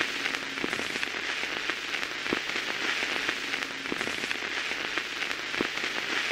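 A steady crackling hiss like rain on a surface, with scattered sharp clicks through it.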